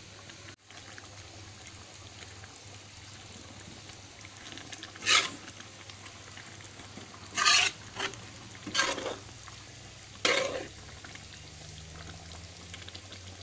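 Thick beef rendang cooking down in a pan and being stirred, with a steady low sizzle under it. In the second half a utensil scrapes against the pan in about five short strokes.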